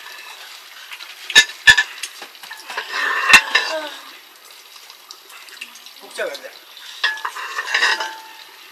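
Metal pots, plates and utensils clinking and scraping, with three sharp knocks about one and a half, two and three and a half seconds in and a second stretch of clatter near the end.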